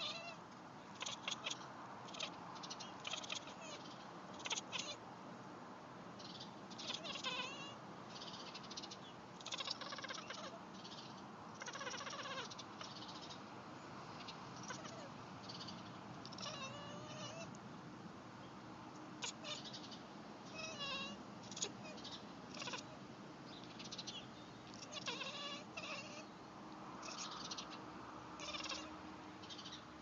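Domestic cat chattering at birds it is watching through a window: many short runs of quick, twittering chirps and clicks with brief pauses between them. This is the excited hunting chatter of a cat that sees prey out of reach.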